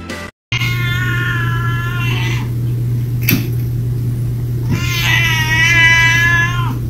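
A cat meowing: two long, drawn-out calls of about two seconds each, with a steady low hum underneath.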